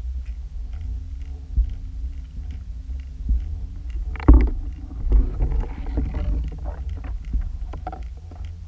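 Underwater rumble with scattered clicks and knocks, a sharp knock about four seconds in, then a few seconds of rougher scraping noise and more clicks.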